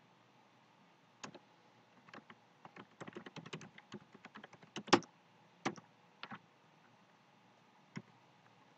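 Typing on a computer keyboard: a quick run of keystrokes, densest a few seconds in, with the loudest single key press about five seconds in. A few isolated clicks follow.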